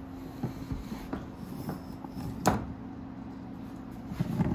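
Light knocks and clatter of things being handled and set down, with one sharper knock about halfway through, over a faint steady hum.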